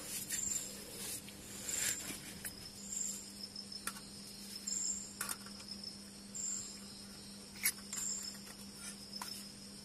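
Crickets chirping at night: short high chirps repeating about every second and a half over a steady high drone. A few light clicks and knocks come from a metal pot and camping stove being handled.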